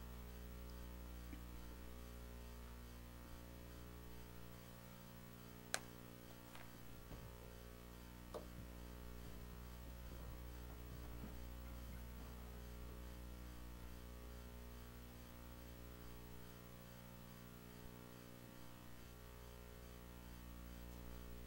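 Quiet room tone with a steady low electrical hum. A sharp click about six seconds in and a smaller one a few seconds later.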